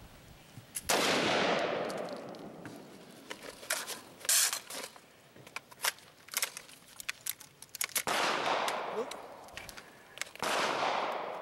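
AR-15 rifle shots, each a sharp report with a long echo rolling off the range: one about a second in and two more near the end. Between them come scattered metallic clicks and clatter of the rifle being handled, with one sharp crack in the middle.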